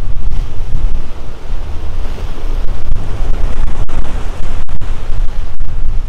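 Ocean surf washing and breaking over coastal rocks, heard through heavy wind buffeting on the microphone that adds a loud, uneven low rumble.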